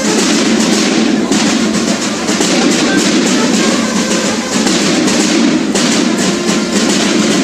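A Mexican school banda de guerra (drum and bugle corps) playing, its snare and bass drums beating a steady march cadence.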